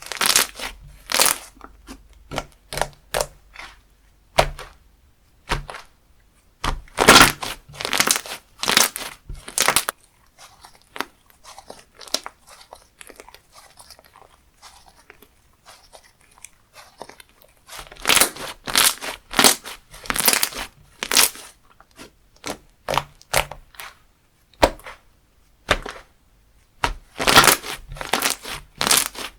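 Crunchy slime worked by hand, giving clusters of sharp crackling pops as it is squeezed, pressed and stretched, with a quieter stretch in the middle.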